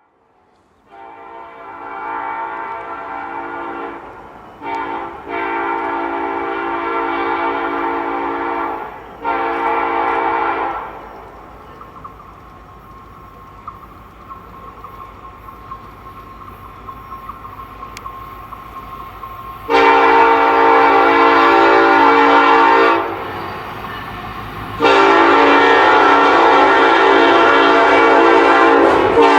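Diesel freight locomotive air horn sounding in a series of long blasts with one short toot, several tones at once. About halfway through the horn stops for several seconds, leaving a low engine and rail rumble, then two more long blasts, the last running on.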